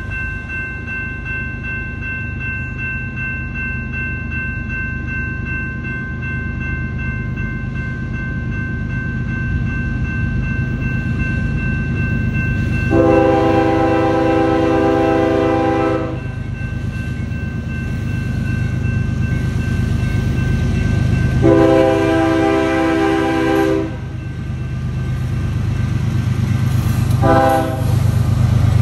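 Freight train diesel locomotives rumbling steadily as they approach, the lead locomotive's horn blowing the grade-crossing signal: two long blasts, then a short one, with the final long blast just beginning.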